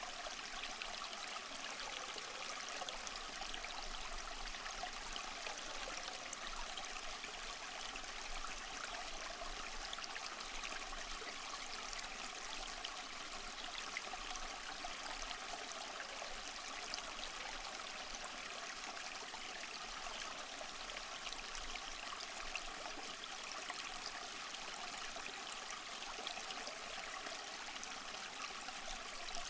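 Small stream flowing steadily, water trickling and babbling over stones.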